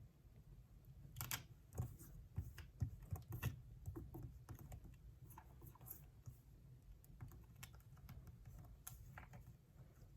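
Faint handling of heavy-duty packing tape on a pocket sketchbook cover: a quick run of crisp taps and crinkles starting about a second in, then sparser, softer ticks.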